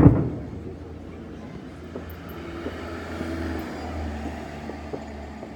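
A firework shell bursting with one loud bang right at the start, followed by a low rolling rumble with a few faint cracks.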